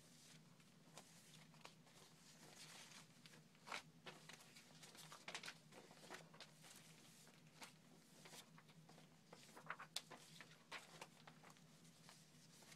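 Faint rustling and crinkling of old paper clippings, photos and magazine pages being handled and leafed through, with irregular soft crackles, the sharpest about four seconds in and near ten seconds, over a low steady hum.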